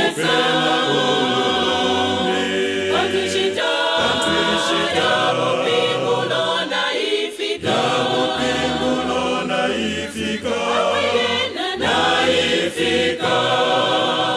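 A choir singing a hymn in Bemba in several-part harmony, in phrases of about four seconds with short breaks between them.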